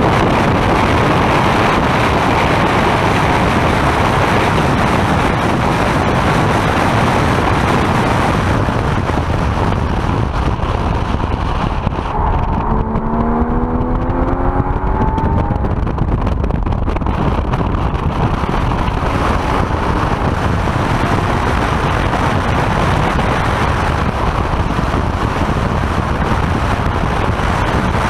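Sports car at speed on a racetrack, heard from inside the cabin: loud engine, wind and road noise, with the engine note rising in pitch about halfway through.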